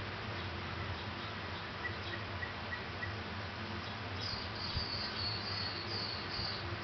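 A miniature dachshund's paws scratching and rustling a fleece blanket as it digs and nests in the bedding. A run of short high chirps, about three a second, starts about four seconds in.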